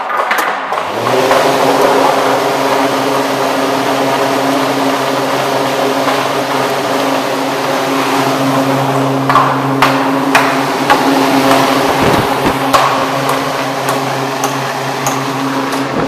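Homemade 24-inch box fan with a 1 hp, 208-volt three-phase motor starting up and reaching full speed within about a second, then running steadily. A loud rush of air over a steady electric motor hum.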